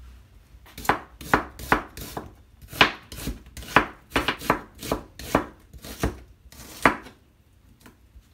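Chef's knife slicing an onion on a plastic cutting board: a series of about fourteen sharp knocks as the blade strikes the board, two to three a second, starting about a second in and stopping about seven seconds in.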